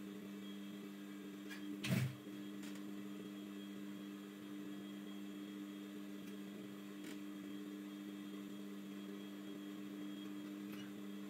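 Steady electric hum of a Brother industrial sewing machine's motor running while it is not stitching, with one sharp knock about two seconds in and a few faint clicks as the fabric is handled at the needle.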